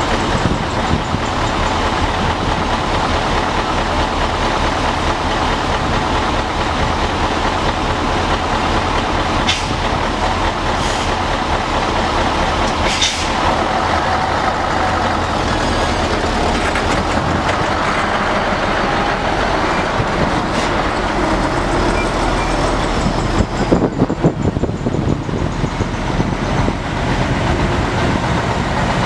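Diesel engines of several heavy trucks running close by, a loud steady drone, with a few short knocks scattered through it.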